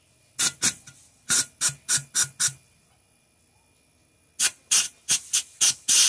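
Compressor-driven air blowing flushing liquid out of a plate-type fridge evaporator's tubing into a plastic bottle, in two runs of short, loud hissing spurts at about three a second. A steady hiss of air starts at the very end.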